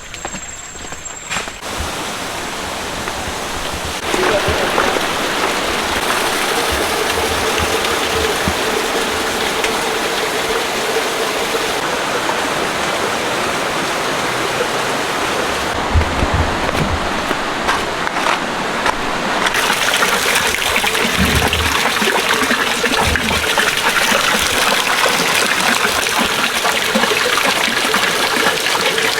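Steady rush of falling water from Tibumana waterfall, getting louder in steps, a few seconds in and again past the middle.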